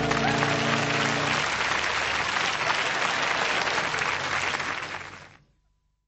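Crowd applauding loudly. The last held chord of the preceding music dies away about a second and a half in, and the applause fades out to silence a little after five seconds in.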